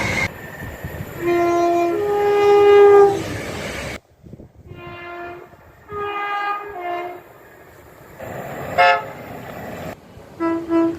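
Train horns sounding two-note blasts, a low note then a higher one, about a second in and again in the middle, from separate clips joined by abrupt cuts. A brief high sound comes near the end, and another horn starts just before the end.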